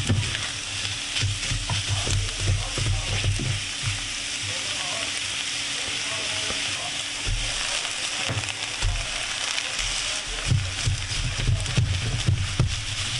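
Scrambled eggs sizzling in a hot square nonstick frying pan while two spatulas stir, scrape and tap against the pan. Cooked rice is tipped in and broken up in the pan in the later seconds.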